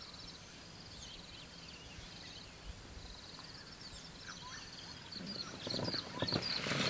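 Faint background of repeated high trills, then in the last two seconds louder, short high-pitched twittering calls, typical of an African wild dog pack calling as it gathers.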